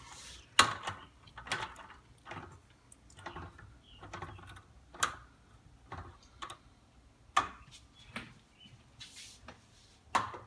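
A string of light clicks and knocks, roughly one a second and uneven in strength, with the loudest about half a second in and another just before the end.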